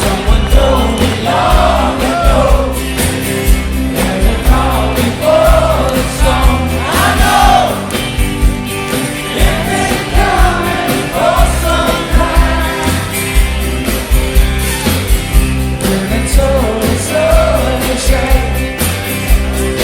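Live rock band playing a song, with a male lead voice singing over a steady drum and bass beat.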